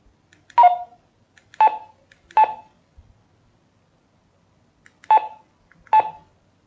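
Radtel RT-470X handheld radio sounding short DTMF keypad tones as its keys are pressed, five separate tones: three in quick succession, then a pause and two more near the end.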